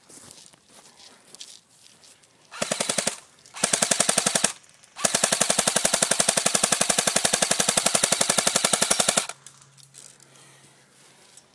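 Airsoft rifle firing on full auto in three bursts: two short ones, then a long one of about four seconds, each a rapid, even rattle of shots.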